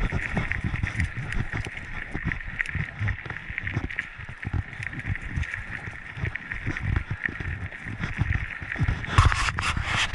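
Mountain bike riding fast down a dirt trail: constant rumble and thumps from the tyres hitting bumps, wind buffeting the microphone, and a steady high rattling buzz. A louder rush of hissing noise comes about nine seconds in.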